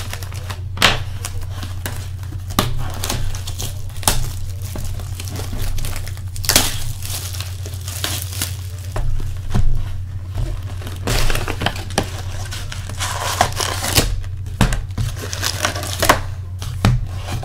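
Plastic shrink-wrap crinkling and tearing as a trading-card box is unwrapped, then foil card packs rustling as they are pulled out of the box, in many irregular crackles over a steady low hum.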